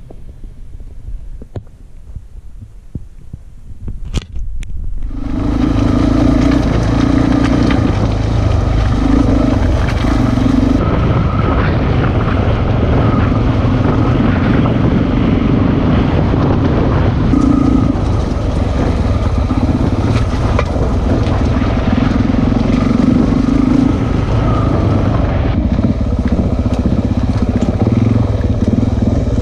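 Single-cylinder dual-sport motorcycle engine heard close up from on the bike, riding a rough dirt and rocky track with the throttle opening and closing. The first five seconds are quieter, with a couple of sharp clicks, before the engine comes in loud.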